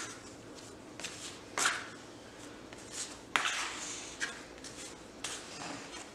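Plastic bench scraper scraping across a floured stone countertop as it pushes and tucks a ball of sourdough dough, in a few short strokes, the longest about three and a half seconds in.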